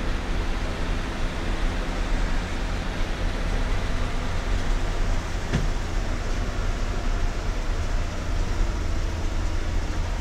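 Vehicle driving, heard from inside the cabin: steady engine and road noise with a deep rumble and a faint hum. A single short click about five and a half seconds in.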